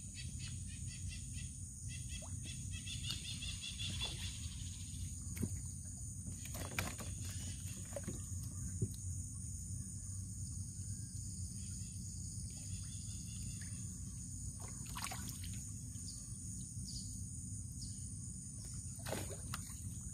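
Flooded-forest ambience: a steady high insect drone over a low rumble, with scattered short knocks and a brief run of bird chirps about three seconds in.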